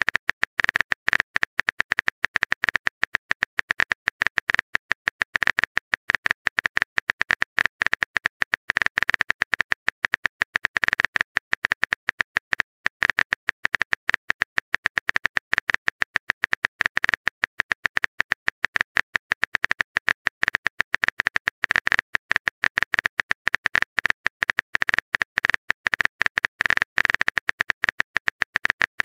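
Keyboard key-tap clicks of an on-screen phone keyboard's typing sound, short sharp clicks coming rapidly and irregularly, several a second, with only brief gaps.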